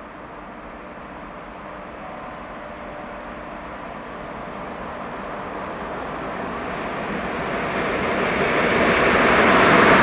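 Freight train of Eas open wagons hauled by locomotive 183 033-0 approaching along the track, its rumble growing steadily louder throughout.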